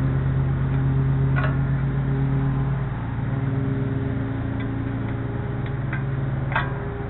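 An engine running steadily, a low even drone, with a few light metallic clicks as snap hooks on a bungee cord are clipped onto the launcher's carriage.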